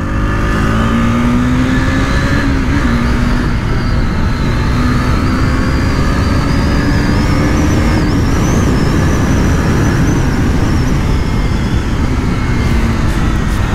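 KTM RC 390's single-cylinder engine running at a steady cruise near 100 km/h, its note climbing slowly over the first several seconds and then holding, under a dense rush of wind and road noise.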